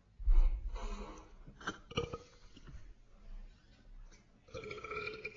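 Faint, slowed-down vocal and handling noises: a low thump just after the start, a few sharp clicks about two seconds in, and a short, deep, drawn-out vowel-like sound near the end.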